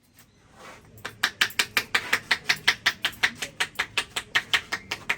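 Hands tapping rapidly on a head in a head massage, about six or seven sharp, crisp strokes a second, starting about a second in.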